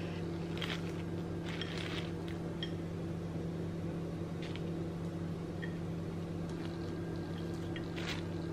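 A few soft, scattered rustles of a plastic oven bag and light handling sounds as sliced garlic is placed by hand onto raw chicken pieces, over a steady low hum.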